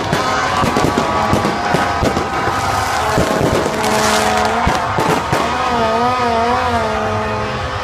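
Fireworks bursting overhead with repeated sharp bangs and crackling, the crackle brightest about four seconds in. From about three seconds in, horns blow sustained tones over the bangs, one of them wavering up and down in pitch near the end.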